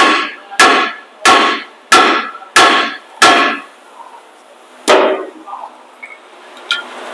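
A steel hammer striking a pickup truck's rear brake assembly to knock a stuck part loose, seven ringing metallic blows. Six come in a steady run of about one and a half a second, then one more after a short pause.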